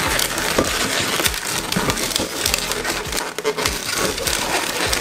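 Inflated latex 260 modelling balloons rubbing and twisting against each other as one is tied onto a joint, giving a dense crackle of squeaks.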